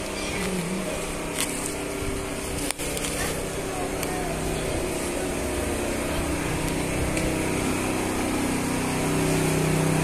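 Ambience of a busy covered market: background voices of shoppers over a steady noisy hubbub, with a low hum that grows louder near the end.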